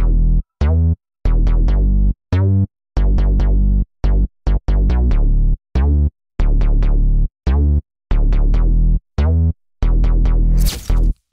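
Electronic background music: deep synth notes chopped into short, abruptly cut blocks with dead silences between, and a rising hiss near the end.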